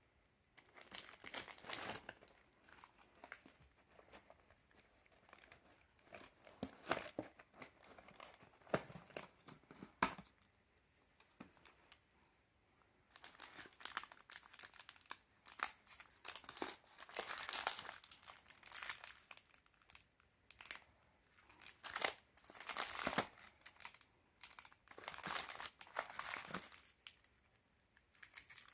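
Clear plastic wrapping crinkling and rustling in irregular bursts as sealed packs of bangles are handled and lifted out of a cardboard box, with one sharp click about ten seconds in.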